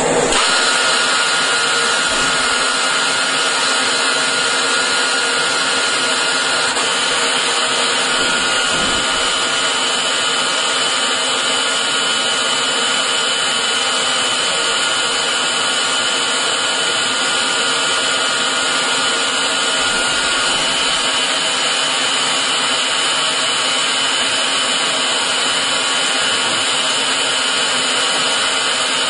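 CNC lathe drilling into a spinning brass bar: a steady machining hiss with a high whine from the spindle and cut.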